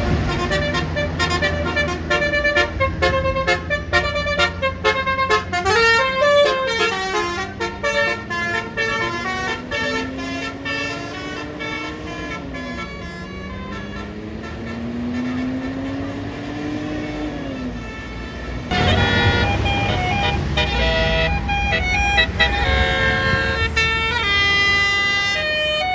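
Bus basuri 'telolet' musical air horn playing quick multi-note melodies, with a slow wailing siren-like tone rising and falling through the middle. About three-quarters of the way in a louder stretch begins, with a rush of noise under another fast run of horn notes.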